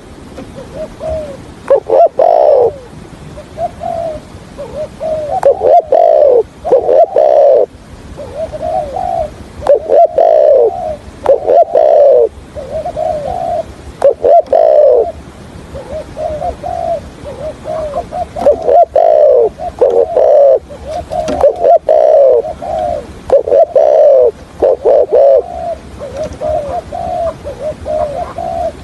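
Decoy spotted dove cooing, phrase after phrase of low coos with quick stuttering notes, the call trappers use to draw wild doves in.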